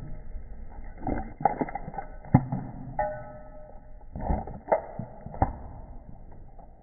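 An animal eating shredded cheese: irregular smacking and clicking chewing sounds, several sharp ones in a row, with a brief thin tone about three seconds in.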